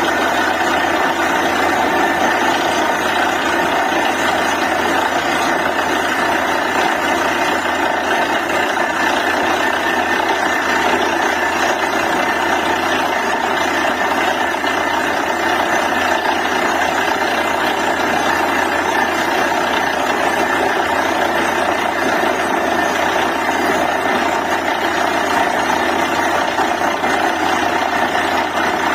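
Borewell drilling rig running steadily: a diesel engine with the even, dense mechanical din of the rig, unchanging throughout.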